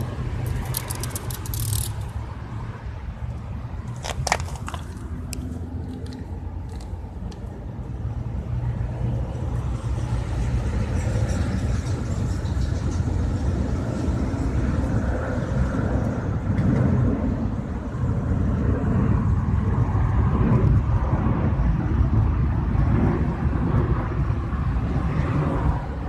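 Steady low outdoor rumble that grows louder after about eight seconds, with a few sharp clicks in the first several seconds, the loudest about four seconds in.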